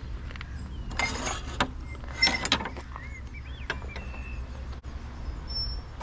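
Wooden field gate being opened and pushed through, its metal latch and fittings clattering in two short rattling bursts, about a second in and again about two seconds in.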